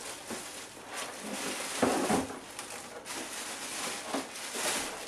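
Cardboard box and its packing rustling and scraping as the person reaches in and handles the contents, with a soft knock about two seconds in.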